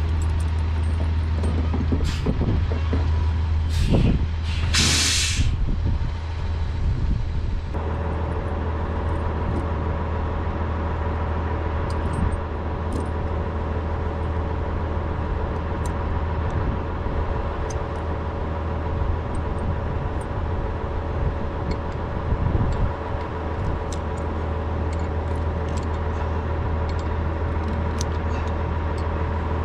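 Truck engine idling steadily, with a few knocks and a brief loud hiss in the first seconds.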